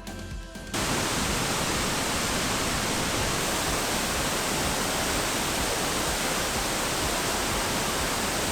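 Background music cuts off under a second in, giving way to the loud, steady rush of a large waterfall close by, with wind and spray blowing on the microphone.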